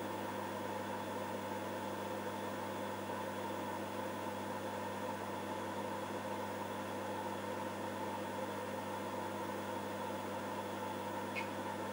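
TRS-80 Model II computer running: a steady hum of its cooling fan and power supply, with several constant tones, while it copies files to an IDE drive. A faint tick comes just before the end.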